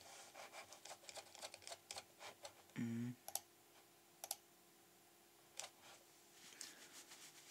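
Faint, irregular clicking of a computer keyboard and mouse, with a short low hum from a man's voice just before three seconds in.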